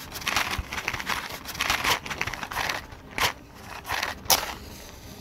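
Rustling and scraping, then two sharp scratching strikes about three and four seconds in, the second the louder: a wooden match being taken out and struck on the side of its matchbox.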